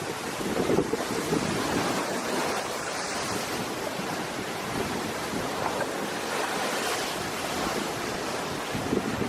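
High storm waves on a lake breaking and washing ashore in a strong wind, with gusts buffeting the microphone.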